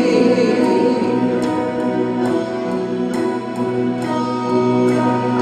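Instrumental break in a congregational worship song, with no singing: sustained chords and light, regular percussion ticks on the beat.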